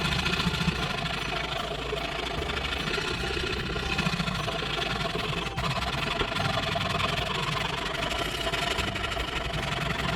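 A motor running steadily, with a constant low hum and no change in speed.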